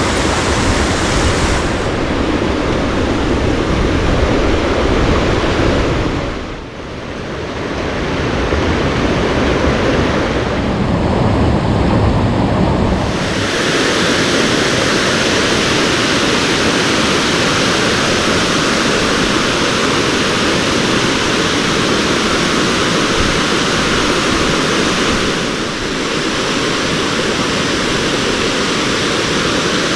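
Mountain stream water rushing, a loud steady wash of whitewater. Its level dips briefly about a quarter of the way through, and its deep low rumble drops away a little before halfway.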